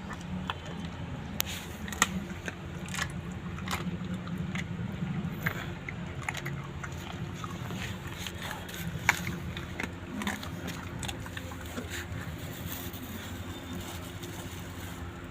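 A dog chewing and biting into a bird: irregular crunches and snaps, thinning out over the last few seconds, over a steady low rumble.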